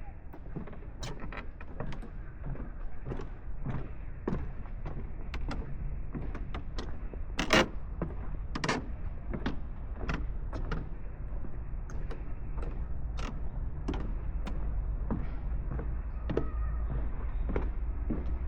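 Footsteps on a path, about two a second, over a steady low rumble. One sharper knock comes about seven and a half seconds in.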